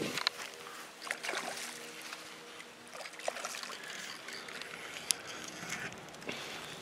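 A hooked snook thrashing and splashing at the water's surface, with scattered sharp clicks and a faint steady hum that fades out about halfway through.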